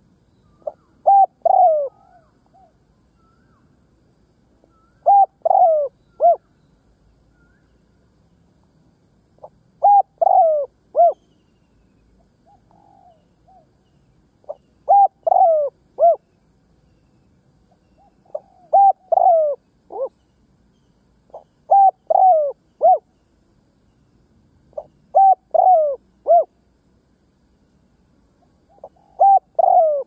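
Caged decoy spotted dove cooing: a short phrase of three or four coos, repeated eight times at intervals of about four seconds.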